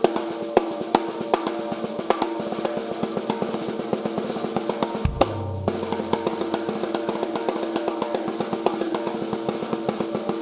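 Drum kit played with fast snare rolls and fills on a 13x7-inch Mapex Hydro snare drum, with bass drum strokes under the rapid hits and the drums ringing in an echoey room. A deeper boom comes about five seconds in.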